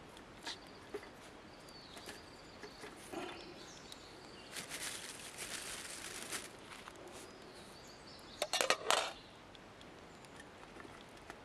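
Rustling for about two seconds, then a quick clatter of a few sharp knocks, over quiet outdoor background sound.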